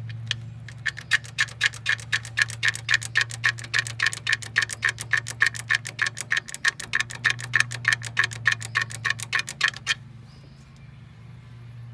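Ratchet wrench clicking steadily, about six clicks a second, while a fastener is turned on a Ford 5.4 L Triton engine during timing-chain removal; the clicking stops about ten seconds in. A steady low hum runs underneath.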